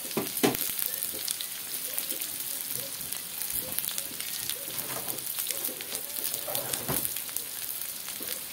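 Lemongrass, ginger, garlic and shallots sizzling in a little oil in an aluminium wok: a steady crackling hiss, with a louder pop just after the start.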